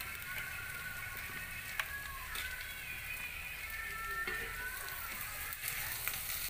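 Sliced shallots and dried red chillies sizzling in hot coconut oil: a steady frying hiss with scattered small crackles, the tempering for a yam theeyal.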